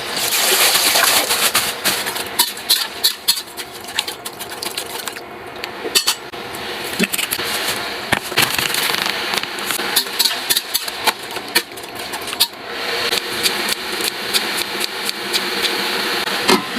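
Irregular clatter and knocking of cooking utensils, many sharp strikes in quick uneven succession, over a steady hiss.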